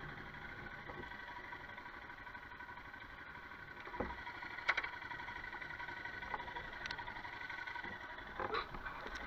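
Royal Enfield Himalayan's single-cylinder engine running steadily as the motorcycle rides slowly up a wet grass track, with a few sharp knocks and clatters around four to five seconds in and again near the end.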